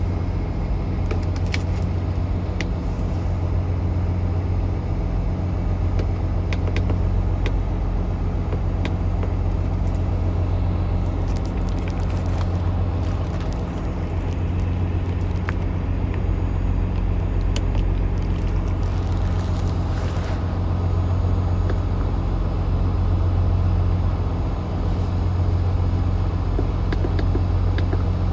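Car engine idling steadily with a low, even hum, with scattered light ticks over it.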